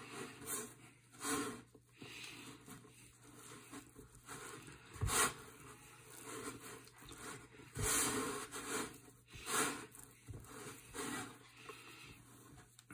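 Hands kneading a dry semolina, flour and egg pasta dough on a wooden board: soft, irregular rubbing and pressing swishes as the dough is pushed and folded.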